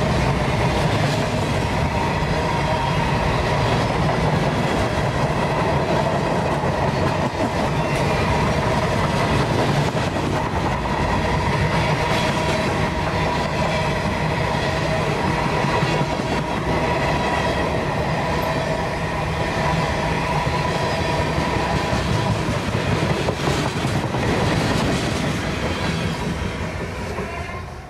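Covered hopper cars of a freight train rolling past at speed: a steady rumble and rattle of wheels on rail, with a steady ringing tone above it. It fades away quickly near the end as the last car passes.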